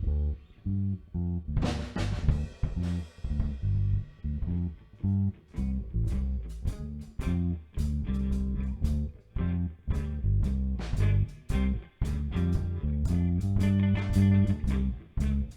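Background music: electric guitar, bass guitar and drum kit playing with a steady beat, cutting off abruptly at the end.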